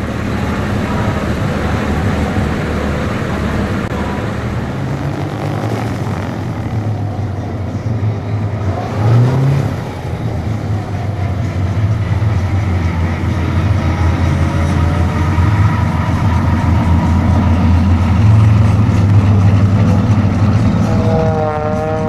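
Twin Allison V-1710 V12 engines of a Lockheed P-38 Lightning running at low power while it taxis: a steady deep drone. The engine note rises briefly about nine seconds in, and the sound grows louder as the plane comes close near the end.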